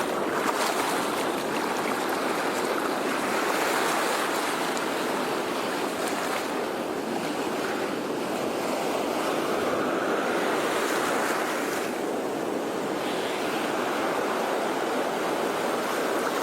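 Sea waves washing onto a shore: a continuous surf hiss that swells and eases gently every few seconds as waves come in, break and draw back.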